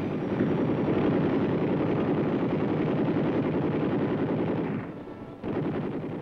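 Helicopter door gunner's machine gun firing a long continuous burst of rapid shots, breaking off briefly about five seconds in and then firing again.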